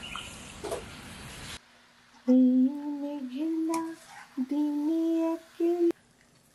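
Steady rain that cuts off abruptly after about a second and a half. Then a voice hums a slow tune of held notes that step up and down, with short pauses.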